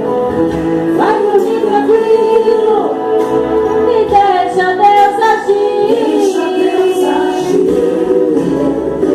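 Gospel singing with musical accompaniment, the voices holding long, drawn-out notes.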